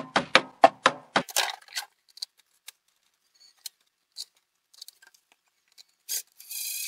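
Screws being set into a plastic cover plate with a hand screwdriver. In the first second there is a quick run of sharp clicks at about four a second, then scattered faint metallic ticks and taps. Near the end comes a short rasping burst.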